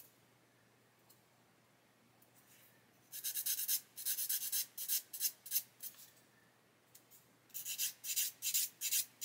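A sanding stick rubbed quickly back and forth against a small photo-etched metal part, in short scratchy strokes about four a second. There are two runs of strokes, one starting about three seconds in and another near the end.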